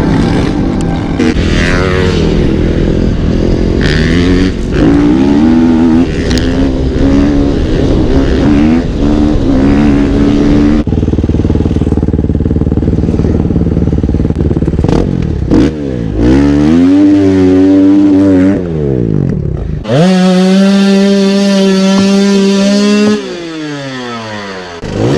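Motorcycle engines revving, the pitch rising and falling several times, then held at a steady high rev for about three seconds near the end before dropping away.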